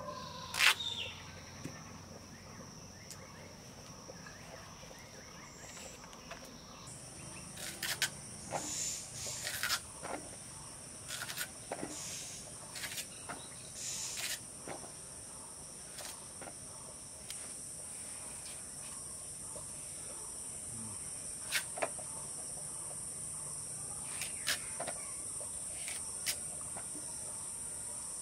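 Pumpkin being cut on a bonti blade: scattered sharp cuts and knocks, the loudest about a second in, with clusters in the middle and near the end. Under them, a steady high-pitched insect chirring, with a second, higher band joining about a quarter of the way in.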